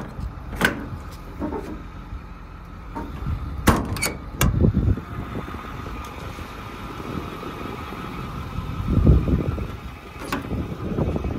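6.4-litre Power Stroke diesel engine idling steadily, with a few sharp metal clicks and clunks from a tool-body compartment's paddle latch being worked, the loudest about four seconds in.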